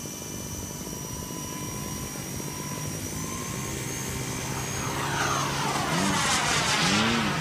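Small electric RC toy helicopter's motor and rotor running with a steady high whine. Near the end it grows louder, with a sweeping whoosh.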